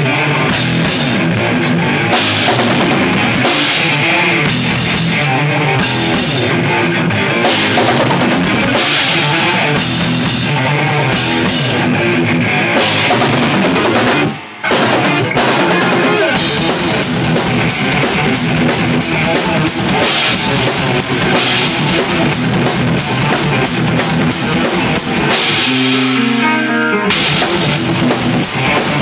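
Thrash metal band playing live at full volume: distorted electric guitars, bass guitar and a drum kit with crashing cymbals. There is a momentary gap about halfway, and near the end the cymbals drop out for about a second, leaving the guitars alone.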